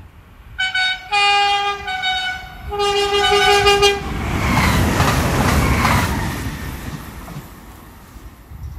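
A regional passenger train sounds its two-tone horn in several blasts over about three seconds. It then passes close by in a loud rush of wheels on rail that fades away.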